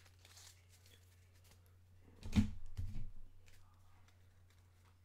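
Trading cards being handled on a table: a dull knock with a rustle, then a second knock about half a second later, over a steady low hum.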